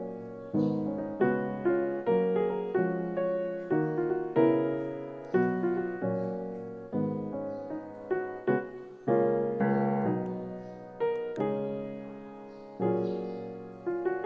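Background piano music: slow notes and chords, each struck and left to fade before the next.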